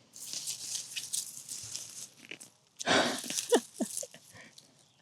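Soil and potato plants rustling and scraping as they are pulled up and sifted by hand. There is a louder rustle about three seconds in, followed by a short falling squeak.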